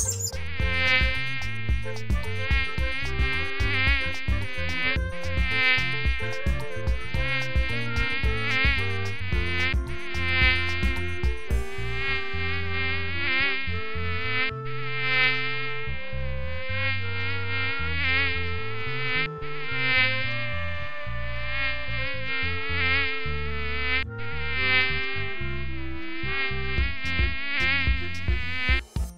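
Flying insect buzzing: a continuous drone that wavers up and down in pitch, breaking off briefly a few times.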